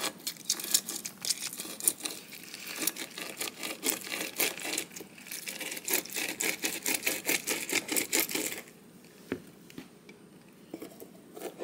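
Lemons being juiced by hand: a dense run of rapid, irregular clicks and crackles that lasts about eight seconds. It pauses with a couple of soft knocks, then faint clicking picks up again near the end.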